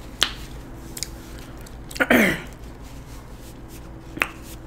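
A few sharp lip smacks from a person eating: one shortly after the start, one about two seconds in followed by a brief falling voice sound, and one near the end.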